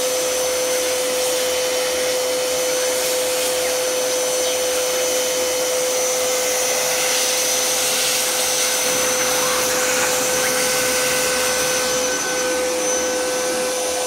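Vacuum cleaner running steadily with a steady whine, its hose nozzle pressed to a hair dryer's rear air-intake vent to suck out the lint and hair clogging it.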